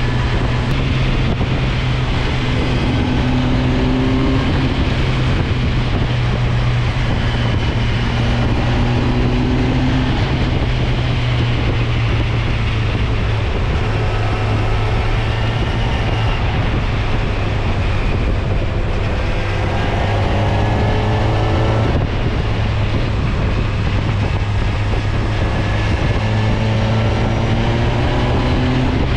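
Kawasaki Versys 1000 SE's inline-four engine running under load in fifth gear at road speed, its note rising and falling a few times as the throttle is rolled on and off through the bends, over a steady rush of wind.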